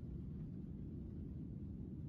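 Steady low rumble of an airliner's cabin with the engines running, heard from a passenger seat.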